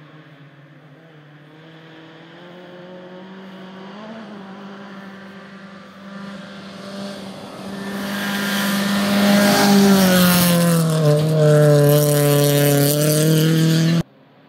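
Rally car on a gravel special stage, approaching from far off, its engine faint at first and growing much louder. About ten seconds in the engine note falls, then holds steady at the loudest, before the sound cuts off abruptly.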